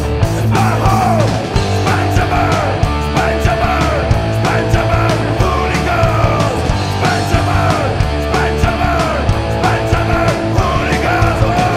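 Oi! punk rock song played on distorted electric guitars, bass guitar and drums, with drum hits at a steady beat.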